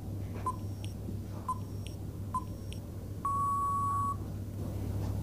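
Countdown timer beeping: three short beeps about a second apart, then a single longer beep a little over three seconds in, signalling that time is up.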